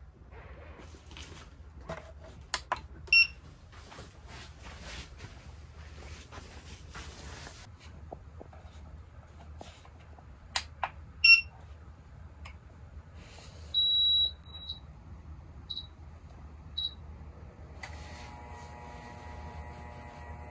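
Plugs and cables clicking into a portable power station, with electronic beeps: two sharp beeps early on and later, then one longer beep followed by three short beeps at the same pitch. Near the end a steady electrical hum starts up as the plugged-in appliance begins running.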